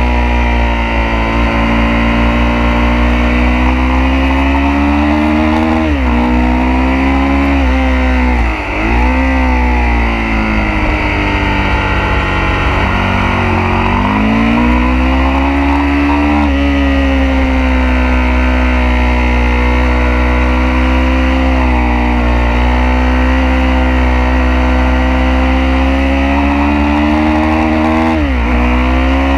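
Onboard sound of a sport motorcycle's engine at speed on a race track. The engine note rises under acceleration and drops sharply at each of several gear changes, with a brief throttle-off dip about eight seconds in, over steady wind rush.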